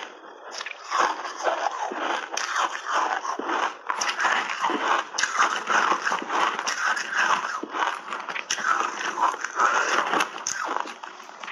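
Chunks of ice coated in milk powder being chewed with the mouth close to a clip-on microphone: dense, continuous crunching and crackling of the ice breaking between the teeth.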